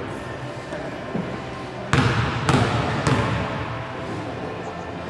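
Basketball bouncing on a gym floor: three dribbles about half a second apart, echoing in the hall.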